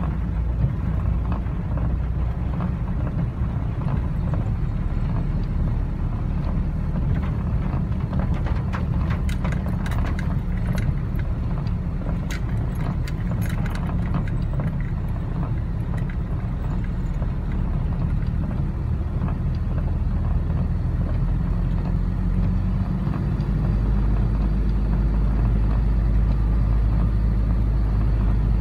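A car driving through floodwater on a wet road, heard from inside the cabin: a steady low engine and tyre rumble, with scattered sharp clicks through the middle stretch. The rumble grows louder near the end.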